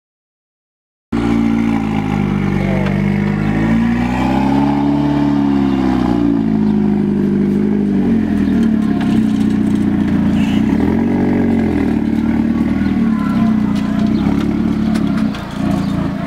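Gumpert Explosion sports car's engine running at idle, blipped twice with a slow rise and fall in pitch: a longer rev about four seconds in and a shorter one about eleven seconds in. The sound starts about a second in.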